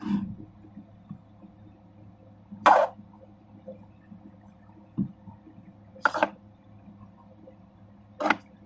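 Plastic Speed Stacks sport-stacking cups being pulled off a nested stack and set down on a wooden table. There are four short plastic scrapes and clacks a couple of seconds apart, with a soft knock in between.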